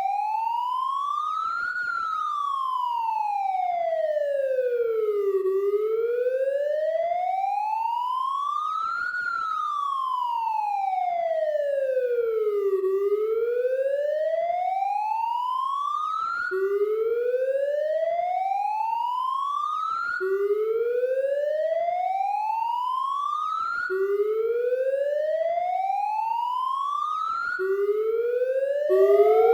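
Police siren in a slow wail, the pitch rising and falling about every seven seconds. About halfway through it changes to a rising sweep that drops back abruptly and starts again about every four seconds, and near the end a second, louder rising tone overlaps it.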